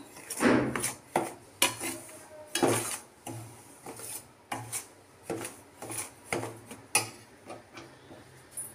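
Steel spoon scraping and clinking against a stainless steel pan as it stirs dry semolina being roasted, in repeated gritty strokes about one or two a second. The strokes grow softer over the last few seconds.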